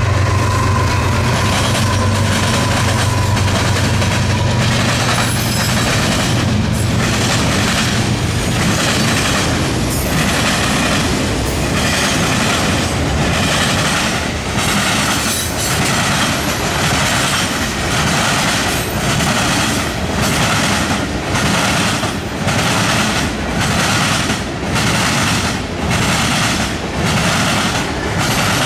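Diesel locomotives of a freight train passing, their engines a low steady hum for the first several seconds with a thin whine in the first few seconds. Then the freight cars roll by, their wheels clacking in an even rhythm, a little more than one clack a second, as each truck crosses the rail diamond.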